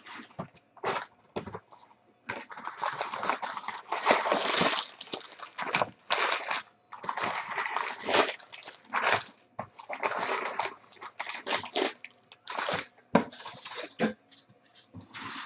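Foil trading-card packs and cellophane wrap crinkling and rustling as a hobby box is handled and its packs are pulled out and stacked, in irregular bursts of crackling.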